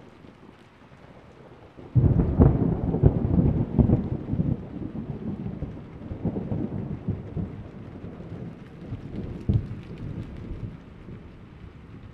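Steady rain, then about two seconds in a sudden loud clap of thunder that rolls on as a long rumble with crackles, swelling again about three quarters of the way through before fading.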